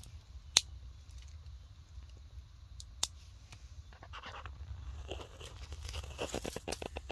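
Dry fallen leaves and twigs crackling and rustling, with a few sharp single clicks and a quick run of crackles near the end.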